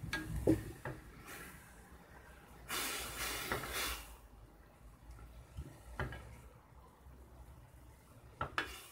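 Wooden spoon stirring grated apple filling in a stainless steel pot, scraping across the metal and knocking against the pot several times, with a longer stretch of scraping about three seconds in.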